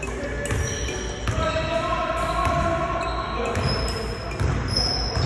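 A basketball bouncing on a hardwood gym court as it is dribbled, with players' voices in the background.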